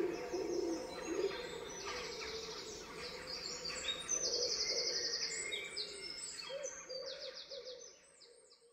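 Dawn chorus: several birds singing at once, rapid high trills and chirps over lower repeated calls, fading out near the end.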